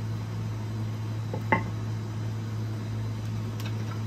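A white dish of seasoning taps once against a glass mixing bowl about one and a half seconds in, a sharp, briefly ringing clink, with a fainter tick near the end. A steady low hum runs underneath.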